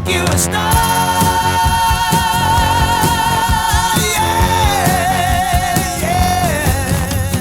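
1974 pop-rock song: a voice holds a long sung note with vibrato, then drops to a lower held note about four seconds in. A band with drums and bass plays underneath.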